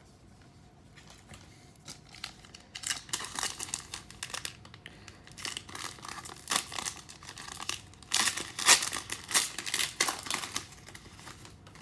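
Plastic trading-card pack wrapper of a 2019 Panini Select football pack crinkling and tearing as it is ripped open, starting about two seconds in, with irregular crackles and snaps.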